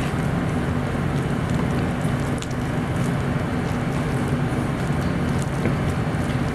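A steady whirring hum and rush of a fan running, with a few faint clicks over it.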